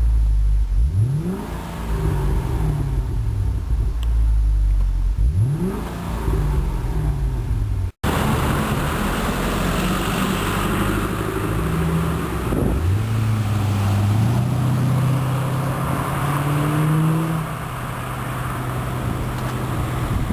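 C6 Corvette V8 through a ShotGun aftermarket exhaust. It is blipped twice, each rev rising sharply and falling back slowly to idle. Then the car is under way: the engine runs at a steady drone over road and wind rush, picking up revs about halfway through.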